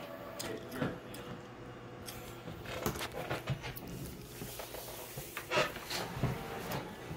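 Office printer making noise: a run of irregular mechanical clicks and knocks over a faint steady hum.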